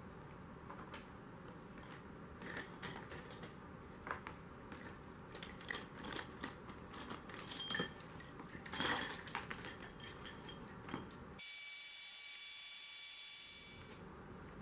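Metal tools and engine parts clinking and tapping while being handled, some strikes leaving a short metallic ring. About three-quarters of the way through, a steady high-pitched whine sounds for about two seconds.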